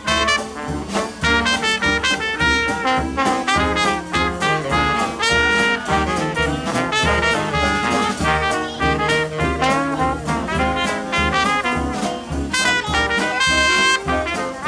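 Upbeat swing-style jazz music led by brass, with trumpet and trombone over a steady, regular beat.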